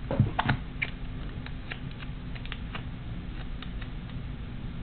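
Hands handling embroidery floss and tape on a project board: a few light clicks and taps near the start, then scattered faint ticks, over a steady low hum.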